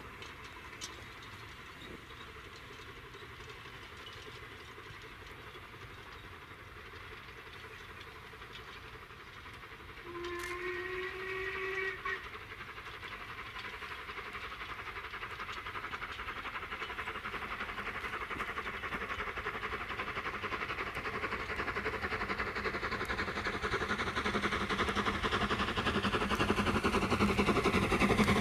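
LMS Jubilee Class steam locomotive 45596 Bahamas working hard towards the listener: its whistle sounds once for about two seconds, then its exhaust and running noise grow steadily louder as it draws near.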